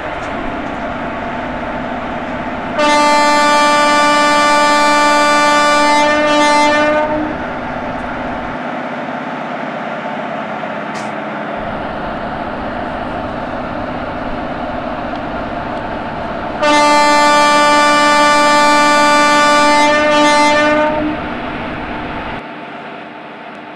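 Locomotive horn sounding twice, each a long steady blast of about four seconds, over a steady train running rumble that fades away near the end.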